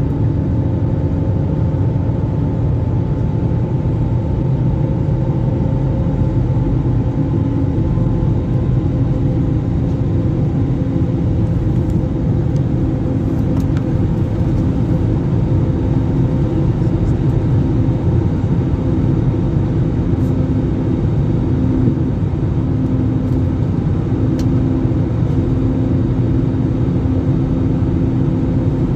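Passenger airliner cabin noise: a steady, even rumble of engines and airflow with a few faint steady hums running through it.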